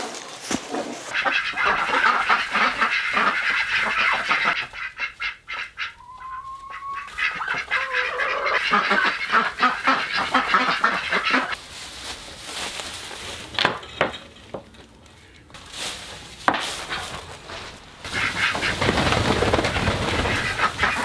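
A flock of domestic ducks quacking and chattering in several loud stretches, with quieter gaps between them. A single drawn-out rising call comes about six seconds in.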